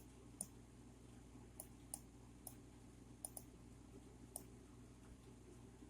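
Computer mouse clicking: about eight short, sharp clicks spread irregularly over the first four and a half seconds, then stopping, over a faint steady low hum.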